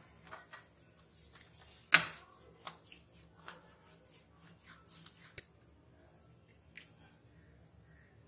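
Plastic rolling pin rolling dough out on a wooden board: soft rubbing with scattered light clicks and knocks, the loudest about two seconds in.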